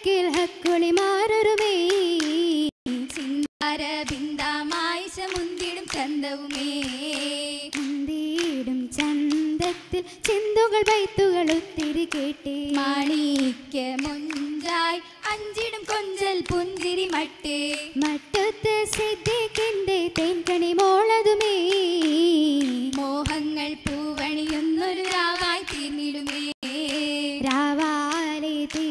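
Female voices singing an Oppana (Mappila) song in unison without instruments, over frequent sharp hand-claps from the dancers.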